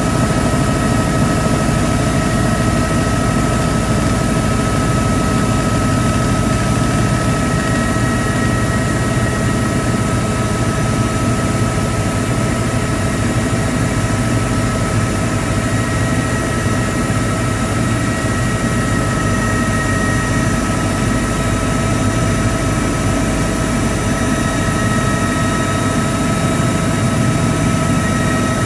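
Helicopter in flight heard from inside the cabin: a loud, steady drone of engine and rotor with a constant high whine over it.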